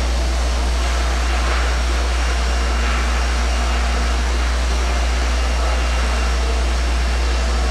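Steady low machine drone with an even hiss and a few faint constant tones, unchanging throughout.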